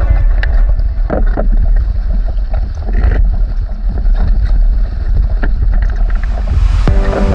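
Wind buffeting the microphone over the rush of a Merlin sailing dinghy moving through the water, with a few sharp knocks. Music comes back in near the end.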